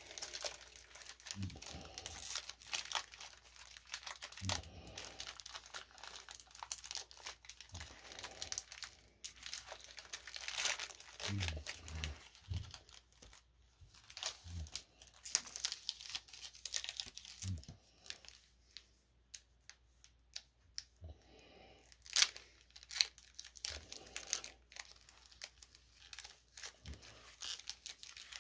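Foil wrapper of a Pokémon TCG booster pack crinkling and tearing as it is handled and opened, with trading cards rustling. It comes as an irregular string of crackles and rips.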